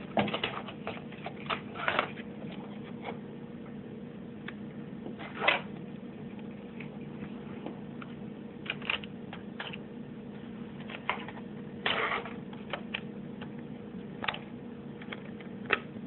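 A laptop hard drive chassis being handled and pushed into its bay, making scattered irregular clicks and short scrapes of plastic and metal, over a faint steady hum.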